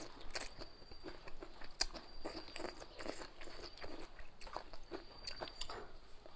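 Close-up biting and crunching of whole green chili peppers, a quick irregular run of crisp bites and chews.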